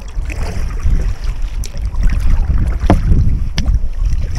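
Wind buffeting the microphone of a camera on a kayak being paddled, with three short sharp clicks in the middle.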